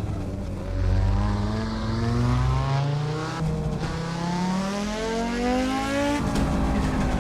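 Audi Sport quattro S1's turbocharged five-cylinder engine under hard acceleration, its pitch rising steadily for about five seconds. The pitch drops sharply at a gear change near the end, then climbs again.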